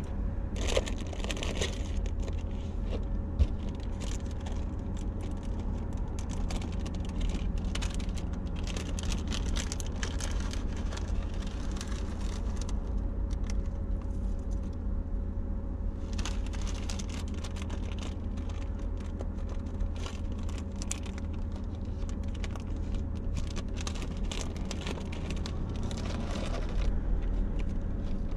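Small packets and items in a clear plastic storage box rustling and clicking as they are handled and sorted, in scattered bursts, over a steady low hum.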